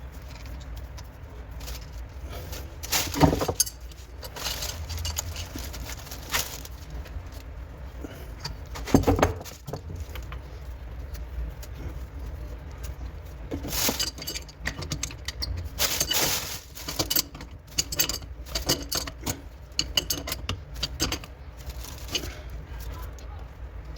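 Metal clinks, taps and knocks of tools and tap fittings being handled during plumbing work, with two louder knocks about three and nine seconds in and a busier run of clicking in the second half, over a low steady hum.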